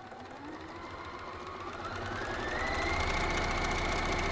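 Bernina Activa 140 electronic sewing machine running, now working again after repair. Its motor whine rises as it speeds up over the first couple of seconds, then holds steady at high speed over a fast, even clatter of the needle mechanism.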